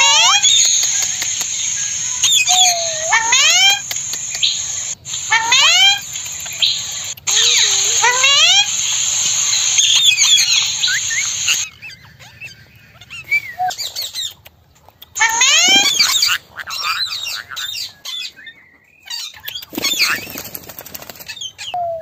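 Rose-ringed parakeets calling: clusters of shrill, steeply rising calls every two to three seconds over a steady high hiss. After about halfway the calls become sparser, broken by sudden dropouts.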